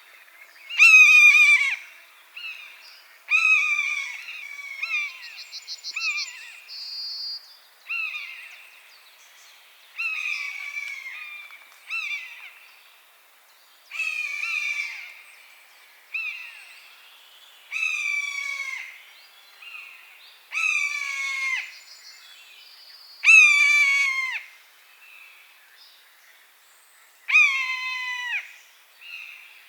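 Common buzzard repeating its mewing call, a high 'peee-oo' that falls in pitch, about a dozen times at two- to three-second intervals, some calls louder than others. A brief, higher-pitched trill from a small songbird comes about five seconds in.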